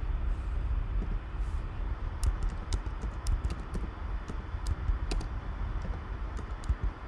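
Keystrokes on a computer keyboard: irregular clicks starting about two seconds in as an IP address is typed into a browser's address bar, over a steady low hum.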